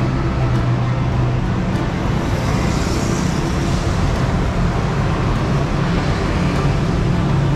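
Road traffic on a busy city street: motor vehicle engines running close by with a steady low hum under a hiss of tyres, and a louder passing hiss about three seconds in.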